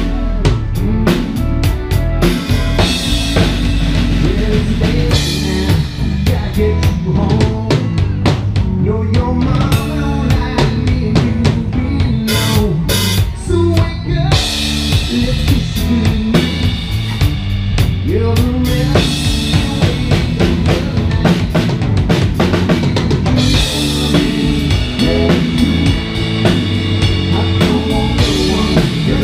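Loud live band playing, picked up on stage close to the drum kit: kick drum, snare and cymbals hit steadily over electric guitar and bass.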